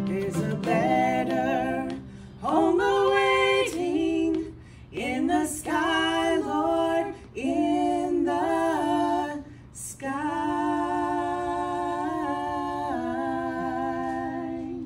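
Two women singing in two-part harmony in short phrases, closing on a long held note that steps down once and ends near the end.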